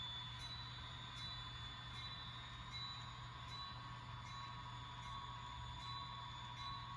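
HO scale model train running on the layout: a faint steady hum with a light tick a little more than once a second.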